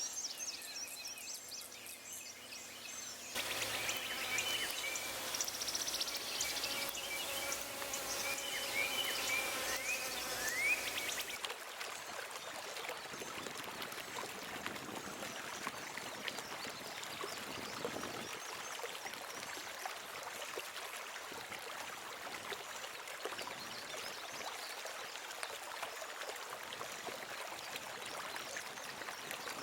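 Outdoor night ambience: high chirping and whistling animal calls over a hiss for the first ten seconds or so. Then, after an abrupt change about eleven seconds in, a steady rushing noise with a faint, thin high whine.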